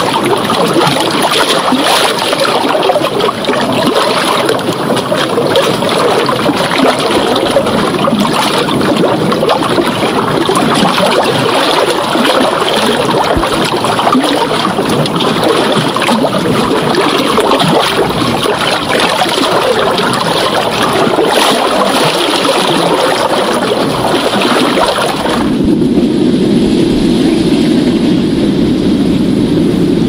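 Ocean waves: a steady hiss of surf and churning water. About 25 seconds in it switches abruptly to a deeper, duller rumble of breaking surf.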